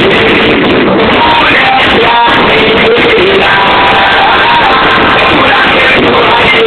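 Music with singing played very loud through a car's aftermarket sound system, with a pair of subwoofers and door speakers driven by an amplifier. The sound stays at full level throughout.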